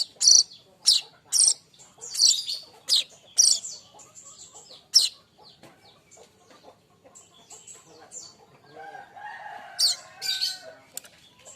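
Young manyar weaver singing: a quick run of sharp, high chirps, each sweeping downward, several a second for the first five seconds, then thinner, fainter chatter. A lower, longer call comes about nine seconds in, among a few more high chirps.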